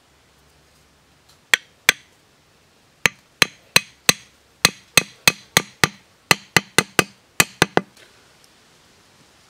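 A machete blade striking the top of a wooden stake about eighteen times, driving it into the earth: two knocks, a short pause, then a steady run of about three blows a second that stops a little before the end.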